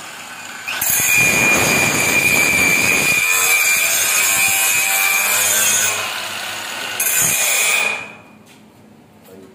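Electric angle grinder running with a steady high whine, its disc grinding steel: loud grinding from about a second in, easing off near six seconds, a second loud pass, then the motor winding down near the end.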